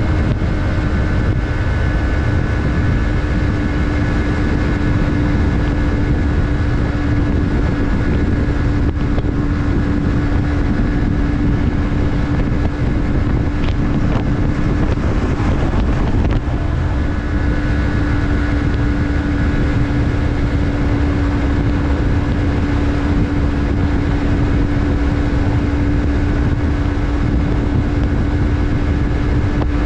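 Yamaha MT-03's 321 cc parallel-twin engine running at a steady pitch, cruising without revving up or down, with wind rushing over the helmet-camera microphone.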